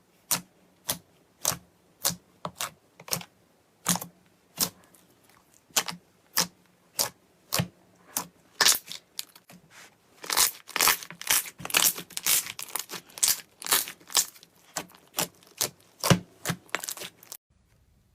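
Slime being pressed and played with by hand, making a string of sharp pops and crackles, spaced out at first and then quick and dense through the second half, stopping suddenly near the end.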